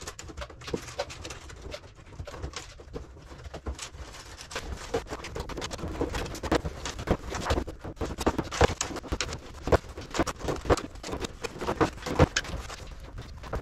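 Copper stitching wires being snipped and pulled out of a plywood kayak's seams: a rapid, irregular run of small clicks and ticks.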